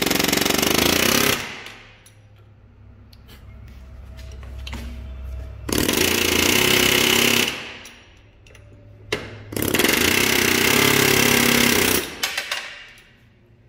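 Pneumatic air hammer chattering against an old tapered bearing race, driving it out of a 1966 Ford Mustang front brake drum. It runs in three bursts: one of about a second and a half at the start, one about six seconds in, and a longer one from about ten to twelve seconds, with a few short knocks between them.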